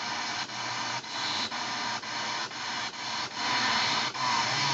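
A Cobra 29 CB radio with a hi-fi receive mod hissing with receiver static through its speaker while it is stepped through channels in search of a signal. The hiss breaks up in short, regular gaps, about two to three a second.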